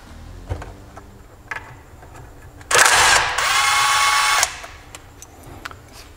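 Cordless power driver spinning out a small 10 mm bolt from a transmission case: one motor run of about two seconds, whining as it speeds up and then holding steady, about halfway through. A few light metal clicks come before it.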